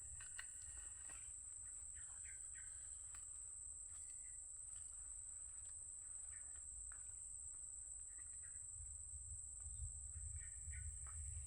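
Faint outdoor ambience: short scattered bird chirps over a steady high-pitched drone and a low rumble that swells near the end.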